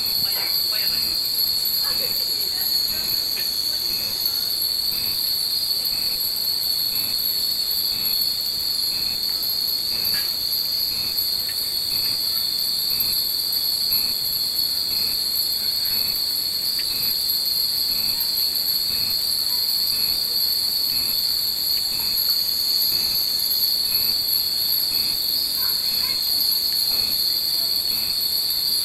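A steady high-pitched drone of insects, typical of a summer cicada chorus. Through it come faint, light tinkles of hanging furin wind chimes every second or so.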